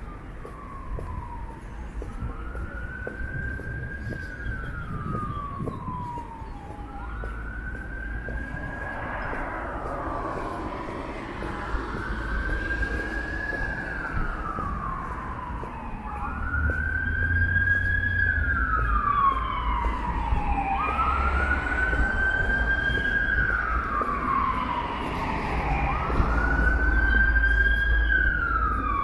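Emergency vehicle siren wailing, each cycle a quick rise and a slow fall in pitch lasting about four seconds, growing louder about halfway through.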